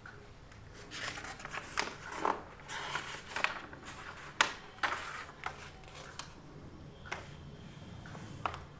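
Irregular rustling, scraping and sharp clicks of something being handled, busiest in the first six seconds, with one louder click about four seconds in.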